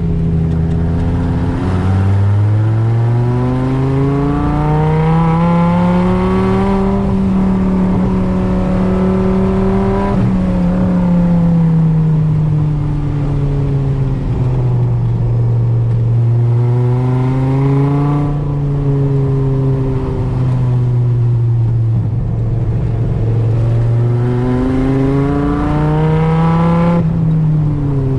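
Dodge Viper GTS's 8.0-litre V10, heard from inside the cabin through its custom side exhaust and headers, driving hard around a track. The engine note climbs in pitch under throttle and falls back as the driver lifts, three times over.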